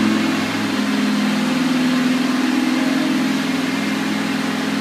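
Lamborghini Gallardo V10 engine held steadily at about 2500 rpm for the emissions-test reading.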